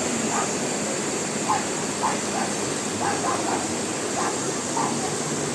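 River water rushing steadily, with a few short, faint calls or yelps over it now and then.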